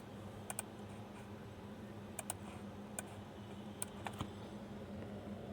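Scattered light, sharp clicks, some single and some in quick pairs, over a steady low hum.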